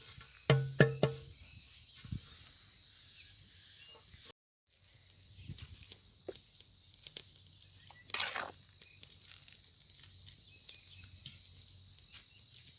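Steady high-pitched chorus of crickets, with a few short knocks about half a second to a second in. The sound cuts out completely for a moment about four seconds in.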